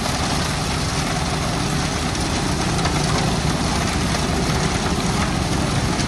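Concrete mixer truck's diesel engine running steadily as its drum turns and discharges wet concrete down the chute, the concrete sliding with a steady rushing hiss over the engine's low rumble.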